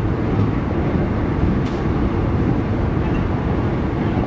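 Steady running noise of a passenger train, heard from beside its own coach: wheels on the rails with no break, and one faint brief high sound about two seconds in.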